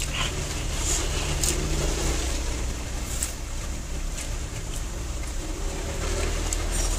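A person eating by hand, with chewing and mouth sounds and a few short, sharp clicks, over a steady low rumble.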